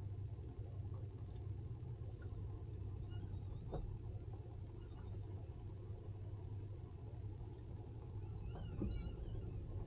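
Steady low rumble of an idling boat motor, with a few faint bird chirps about nine seconds in.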